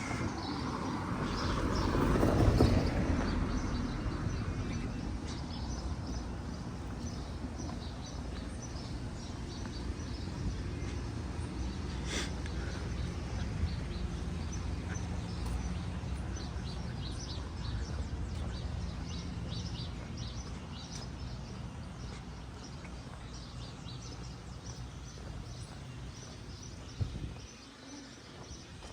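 Small birds chirping in quick repeated high notes over a steady low rumble of outdoor ambience. A louder rush of noise swells and fades in the first few seconds, and there is a single sharp click about twelve seconds in.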